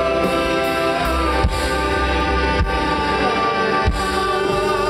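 A live rockabilly band playing, with upright bass, drum kit and electric guitar: long-held notes ring out over a few drum strikes about a second apart.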